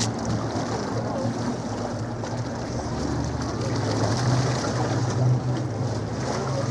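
Avro Lancaster bombers' four-engine Rolls-Royce Merlin V12 drone in flight, a steady low hum that swells slightly about four to five seconds in.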